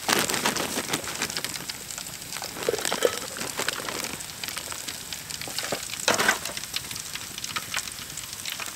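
Wood campfire crackling, with bacon sizzling in a foil pan over it. There is a louder rustle at the start and again about six seconds in.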